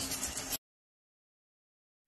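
Metal-rod straightening machine running with a steady mechanical clatter, cutting off abruptly about half a second in, followed by dead silence.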